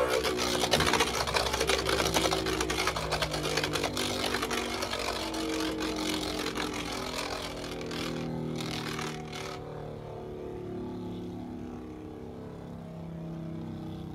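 Guilty Longinus and Ragnarok Beyblade Burst tops spinning in a clear plastic stadium. They give a wavering whir under a dense rattle of clashing and scraping on the plastic. After about nine and a half seconds the hits die away, leaving a quieter, steady spinning whir.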